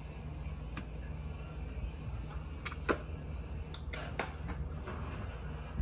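Crispy deep-fried egg roll wrappers crackling as they are pulled apart, a few sharp crackles and clicks, most of them bunched in the middle with the loudest about three seconds in, over a low steady hum.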